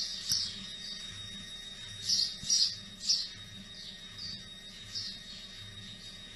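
Green rubber squeaky toy squeaking in short high squeaks as a husky chews it, repeating irregularly and loudest about two to three seconds in.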